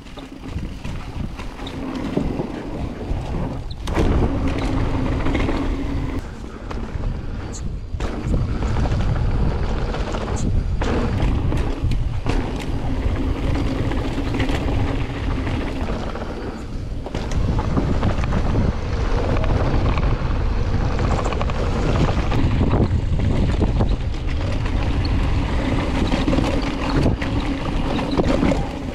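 A mountain bike running down a dirt downhill trail, with wind buffeting the microphone in a heavy steady rumble, tyre noise on the dirt, and scattered sharp knocks from bumps and landings.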